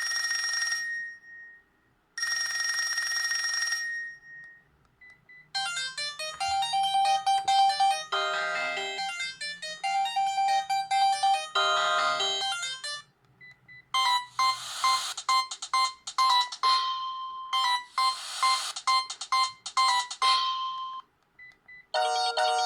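Sharp GX15 mobile phone playing its built-in ringtones one after another. The first is a ring-like electronic tone in two bursts. Two short melodic electronic tunes follow, each ending in a brief pause, and another tune starts near the end.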